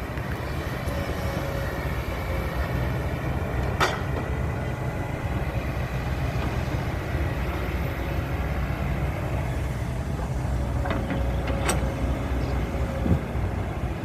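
Hydraulic excavator's diesel engine running steadily, with a faint steady whine over the rumble. Two sharp knocks sound, about four seconds in and again near the end.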